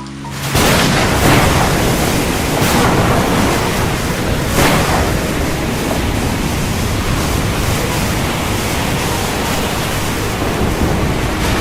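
Heavy rain pouring as a dense, steady hiss with a deep rumble underneath. It starts abruptly about half a second in, and a few louder swells pass through.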